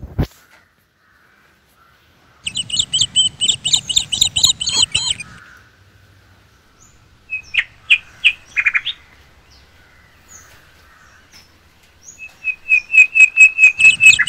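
A bird calling in loud, rapid runs of high chirps, three bouts of a few seconds each.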